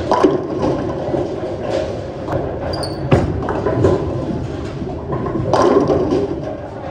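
Motiv Ripcord Velocity bowling ball rolling down the lane, then striking the pins with a clatter late on, over the general din of a bowling alley with thuds from other lanes.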